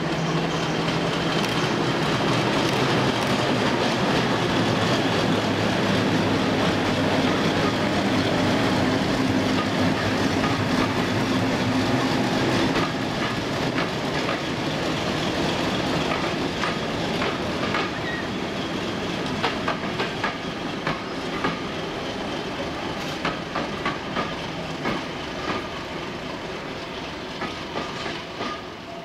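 British Rail Class 50 diesel locomotive passing with its English Electric 16-cylinder engine running steadily. About halfway through the engine note drops away and the coaches' wheels take over, clicking in rhythm over the rails and fading as the train goes by.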